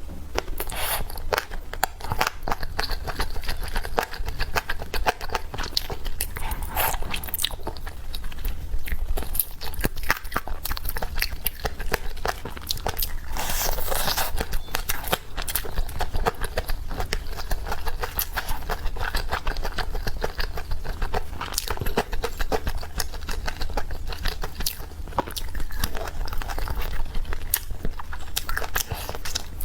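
Close-miked eating of chicken: biting and chewing with a dense stream of short crackling clicks, busiest a little before the middle.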